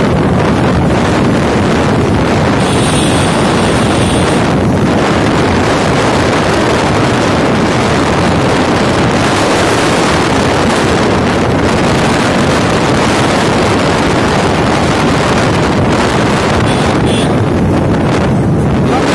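Wind rushing hard over a phone microphone on a moving motorcycle, a loud steady roar mixed with engine and road noise.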